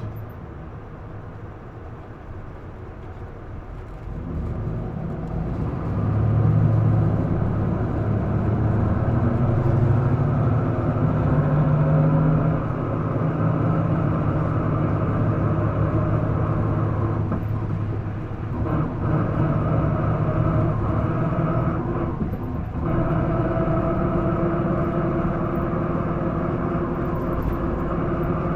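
Isuzu Erga PDG-LV234L2 city bus heard from inside the cabin: its diesel engine is quiet at first, then pulls away and accelerates hard at high revs. The sound dips briefly twice near the later part, as at gear changes. The uploader says this bus has developed an unusual noise.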